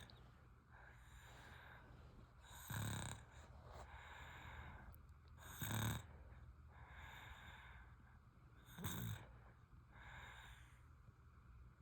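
A sleeping baby snoring: three snores about three seconds apart, with softer breaths between them.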